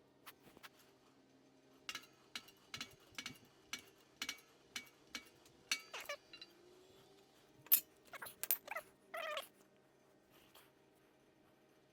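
A run of sharp metallic clicks and taps from hand tools working clamps off a pressed-out wheel-bearing hub. Several short wavering squeals follow in the middle.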